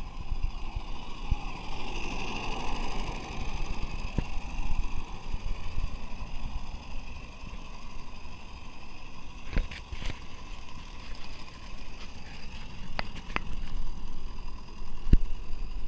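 Live-steam garden-scale Climax geared locomotive running along its track with a steady hiss. Occasional sharp clicks sound over it.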